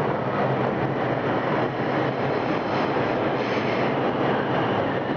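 New York City subway train running along the station platform: a steady, loud noise that holds without a break.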